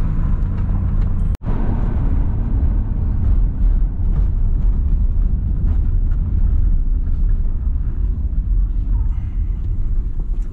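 Pickup truck driving on a rough country road, heard from inside the cab: a steady low rumble of engine and tyres. The sound cuts out for an instant about a second and a half in.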